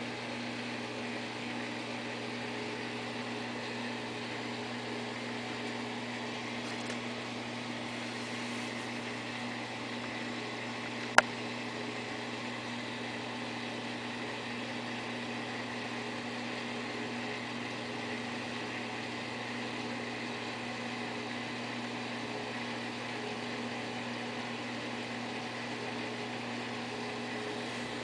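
Steady low electrical hum over a soft hiss, typical of a saltwater aquarium's pumps running, with a single sharp click about eleven seconds in.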